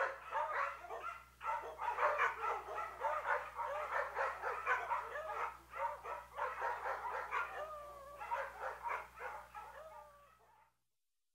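Several dogs barking and yelping over one another in quick, overlapping calls, with a few drawn-out whines near the end; the sound cuts off abruptly shortly before the end.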